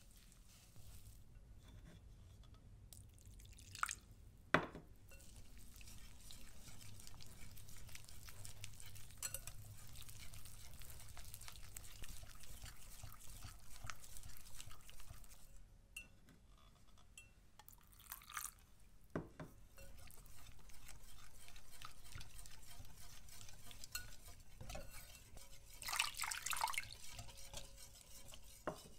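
Wire whisk stirring shiratamako rice flour and water into a batter in a glass bowl: steady swishing with a few sharp clinks of the whisk against the glass. Near the end water trickles in from a measuring cup.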